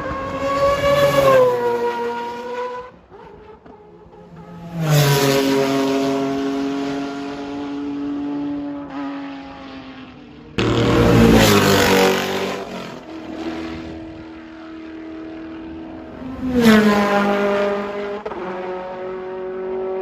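Mazda 767B four-rotor racing rotary engine, loud and high-pitched, revved hard in bursts about every six seconds; after each sudden rise the revs fall away before the next one.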